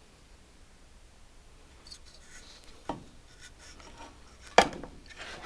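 Handling of an old Lombard chainsaw as it is turned over: faint rubbing and scraping from about two seconds in, a knock near three seconds, and a sharp, louder knock near the end.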